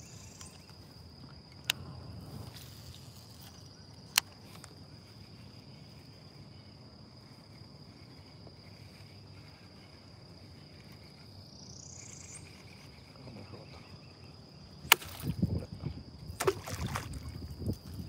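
Outdoor lake ambience from a small inflatable fishing boat: a steady high-pitched whine that swells upward twice over a low rumble of wind and water. There are two sharp clicks in the first few seconds. A flurry of knocks and bumps near the end is the loudest sound.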